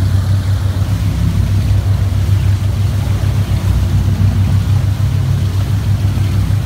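Powerboat engine running steadily at speed, a deep steady drone, with water rushing and churning in the wake.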